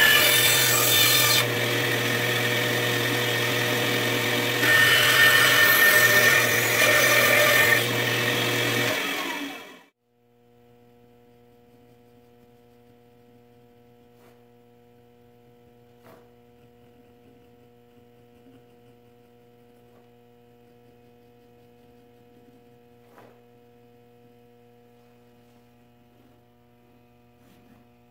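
Bandsaw cutting a mahogany spoon blank: the motor hums steadily under the blade's cutting noise, which grows louder in two stretches as the wood is fed. It cuts off abruptly about ten seconds in, leaving only a faint steady electrical hum with a few small ticks.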